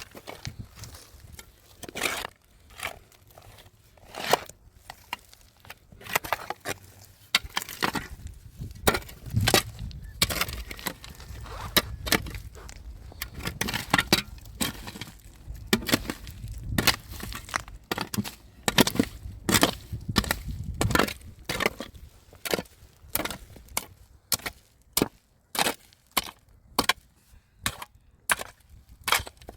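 Repeated sharp blows of a hand tool striking a hard surface, irregular and about one a second, with a low rumble under the middle stretch.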